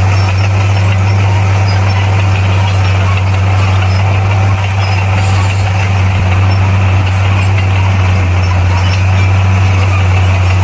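Bulldozer's diesel engine running steadily with a constant low drone.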